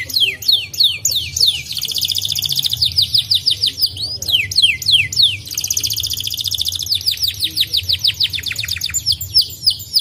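White canary singing: a quick string of sharply falling chirps broken by two long, fast trills, one about two seconds in and one about five and a half seconds in, then a run of rapid falling notes.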